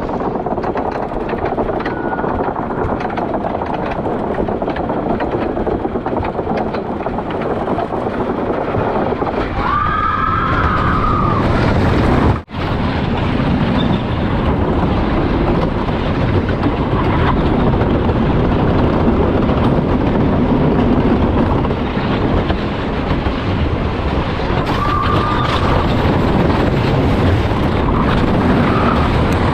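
Roller coaster train running along its track: loud, steady rattle and rush of wind on the microphone, broken by a sudden cut about twelve seconds in.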